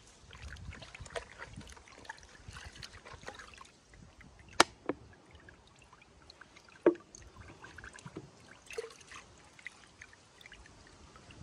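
A scooter's foam air filter being washed and squeezed by hand in a plastic bucket of liquid: soft splashing and trickling, with a few sharp clicks about halfway through.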